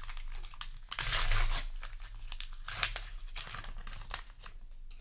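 Foil trading-card booster pack wrapper crinkling and tearing as it is handled and opened, in irregular crackly rustles, loudest about a second in.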